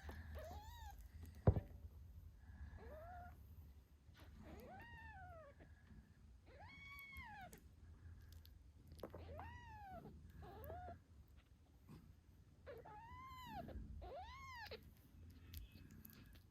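Eight-day-old British shorthair kittens meowing: about eight thin, high calls, each rising and then falling in pitch, spaced a second or two apart. A single sharp click about a second and a half in.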